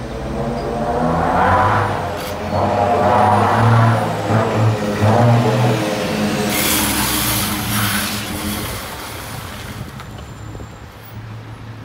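Renault Premium 370 truck's diesel engine running as it drives slowly past, its revs rising and falling. About six and a half seconds in, a hiss of compressed air lasts about two seconds, then the engine sound fades as the truck moves away.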